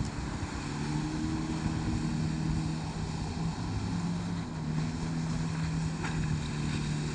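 1300cc Suzuki jet ski engine running at a steady speed, with a brief wobble in pitch about three seconds in.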